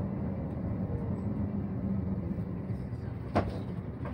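MAN NÜ 280 low-floor diesel city bus driving, its engine and road noise running steadily. A single sharp knock comes a little over three seconds in, with a weaker one just before the end.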